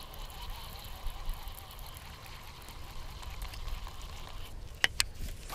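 Lew's Custom Pro Speed Spool baitcasting reel with a 6.8:1 gear ratio, cranked fast to retrieve the lure: soft, steady reel noise over a low rumble, with two sharp clicks about five seconds in.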